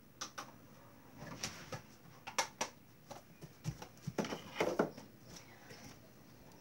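Handling noise: a scattering of light clicks and taps, with a short, louder scraping rustle a little past the middle.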